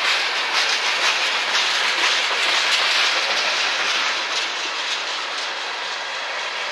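Freight train cars rolling past on steel wheels: a steady rush of rail noise with faint repeated clicks of wheels over rail joints, easing off slightly over the last couple of seconds.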